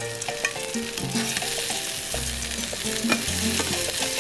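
Piccata cutlets sizzling as they fry in a pan, with sharp clicks of metal tongs against the pan as the pieces are lifted out.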